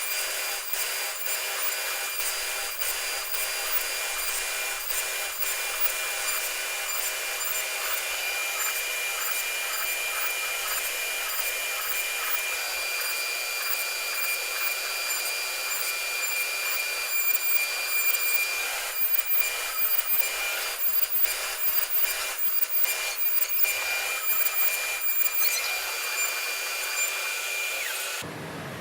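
CNC router running and cutting: a steady high spindle whine over a scratchy rasping noise with many small clicks. It cuts off suddenly near the end, leaving a quieter low hum.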